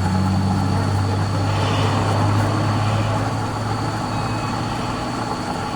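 A steady low engine hum with a rumbling noise, like a running vehicle engine.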